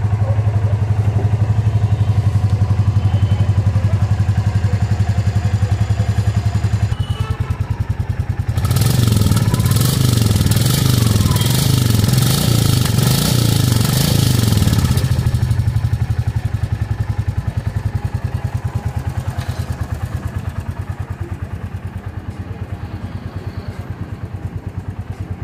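Royal Enfield Classic 350's single-cylinder engine idling with a steady beat on its first start after an engine rebuild. From about 8 to 15 seconds in, the engine speed rises and falls several times and the exhaust is heard up close with a hiss. It then settles back to a steady idle that grows fainter near the end.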